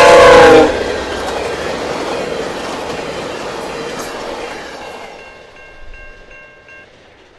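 A VIA Rail P42DC locomotive's K5CA-LS five-chime horn sounds very loudly as it passes at about 125 km/h, its chord dipping slightly in pitch and cutting off under a second in. Then comes the rush and rail clatter of the passenger cars going by at speed, fading over the next few seconds. Near the end the level-crossing bell is heard ringing, about three strokes a second.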